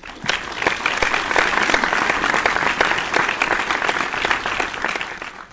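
A crowd applauding: many dense, irregular hand claps that swell up quickly, hold steady, and fade away near the end.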